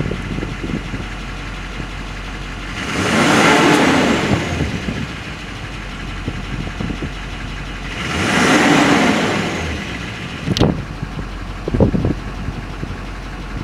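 6.6-litre LBZ Duramax V8 turbo-diesel idling, revved up briefly twice, each rev rising and falling over about two seconds. A few sharp clicks near the end.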